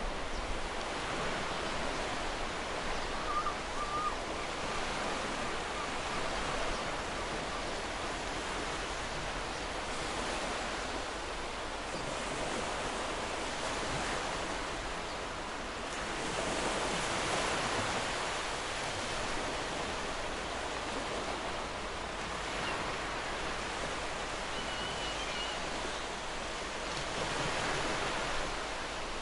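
Sea waves breaking and washing in steadily, the surf swelling louder a little past halfway and again near the end. Faint short chirps twice.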